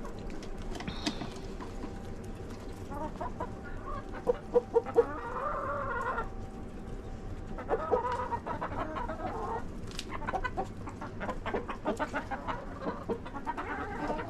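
Backyard chickens clucking and calling, with three short loud clucks about four seconds in, a longer drawn-out call right after, another run of calls around eight seconds, and scattered light ticks near the end.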